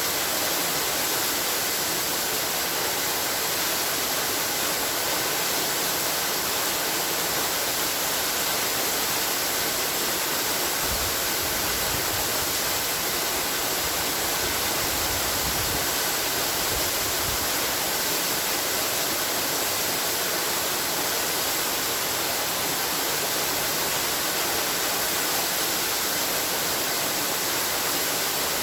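Waterfall: a steady rush of falling water, an even hiss weighted toward the high end. A faint low rumble swells briefly near the middle.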